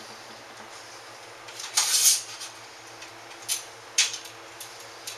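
Metal Celestron telescope tripod legs clinking and rattling as the wing bolts are loosened and the legs are slid out. There is a short clatter about two seconds in, then a few single sharp clinks.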